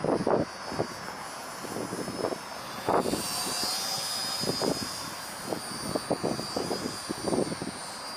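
Twin brushed electric motors and three-blade propellers of a micro RC P-38 in flight: a high whine that swells about three seconds in as the plane passes overhead and fades again after about five seconds. Irregular short low rumbles run throughout.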